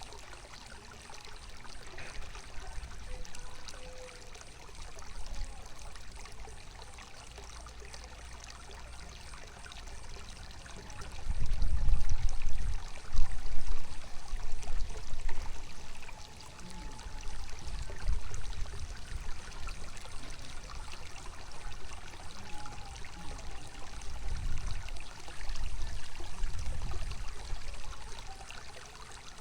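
Running water falling and splashing in a steady rush, with deep rumbling swells that grow loud about a third of the way in and again near the end.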